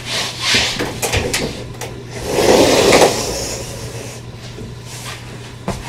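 A sliding door pulled shut along its track, a loud sliding sweep that fades out, after a few short knocks of handling. A sharp click near the end.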